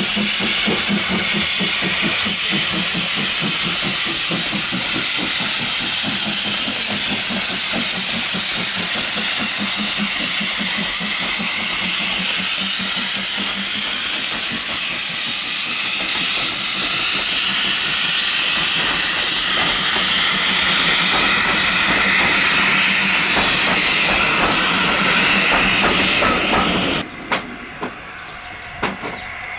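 Steam locomotive letting off a loud, steady hiss of steam, with a fast pulsing underneath that fades over the first half. The hiss cuts off abruptly near the end, followed by a few sharp clicks.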